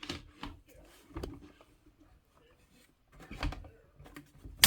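Clicks and knocks of a plastic RC car body and its quick-release pins being handled and lined up on the chassis: a few separate hits spread out, the sharpest near the end.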